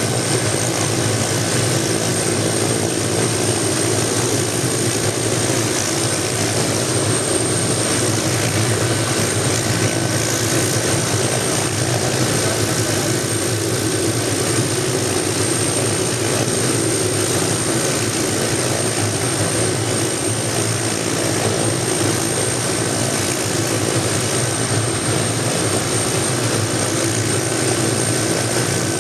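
Hughes light helicopter running steadily on the ground with its main rotor turning, a warm-up run after a cold-engine start.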